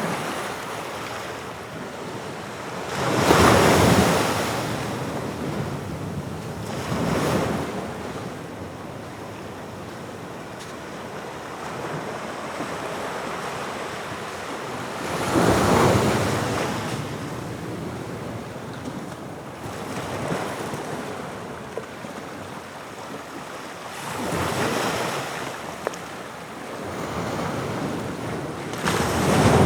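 Atlantic waves breaking on the shore: each wave rises to a louder surge every four to eight seconds, with a steady wash of surf between. The strongest breakers come about three seconds in, halfway through and at the very end.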